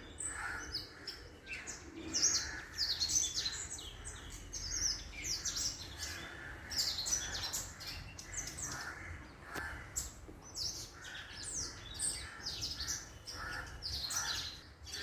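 Many small birds chirping at once: a dense, overlapping run of short, high chirps, each falling quickly in pitch, with no real pause.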